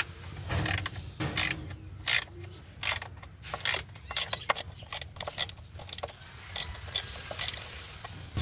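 Irregular metallic clicks and clanks from a ratchet wrench and other hand tools as a crankshaft pulley and its bolt are fitted to a car engine.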